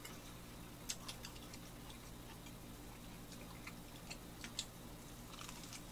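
Faint, scattered clicks and crunches of buttered toast being chewed close to the microphone, over a low steady hum.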